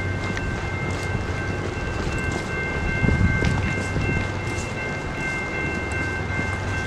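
Commuter train of bilevel coaches running beside the platform: a steady low hum with thin, steady whining tones above it, and a louder rumble about three seconds in.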